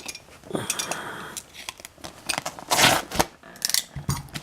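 A cardboard shipping box being cut open with a box opener: a few scraping, ripping strokes, the loudest about three seconds in.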